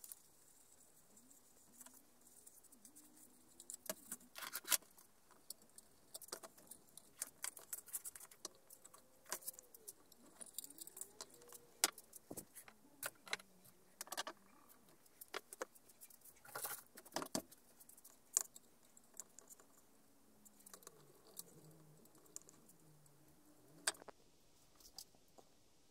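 Scattered light clicks, taps and rattles of handling: the wooden lamp and its power cord, plug and inline switch being moved about on a workbench.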